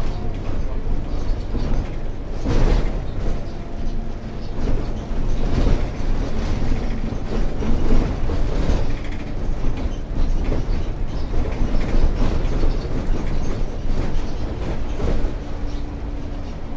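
Cabin sound of a Scania K230UB single-deck bus under way: its five-cylinder diesel engine and road noise. Knocks, creaks and rattles come from the body and fittings, with the loudest jolt about two and a half seconds in.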